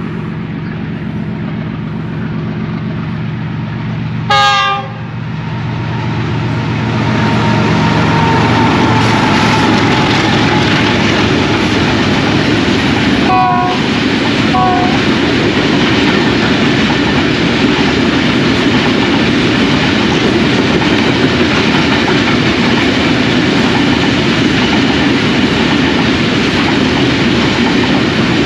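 GE U40 diesel-electric locomotive hauling a freight train. Its engine drones as it approaches, and it gives one short horn blast about four seconds in. Then comes the steady rumble and clatter of covered freight wagons rolling past close by, with two brief toots near the middle.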